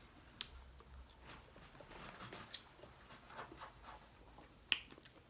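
Faint chewing and handling of boiled crawfish and shrimp, with scattered small crackles and two sharp clicks, one shortly after the start and one near the end.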